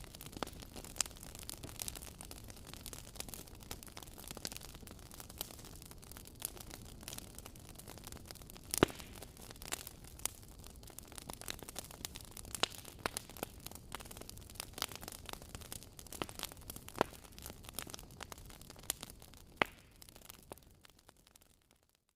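Wood fire crackling in a fireplace: a steady low hiss with irregular sharp pops and snaps, the loudest about nine seconds in. The sound fades away to silence just before the end.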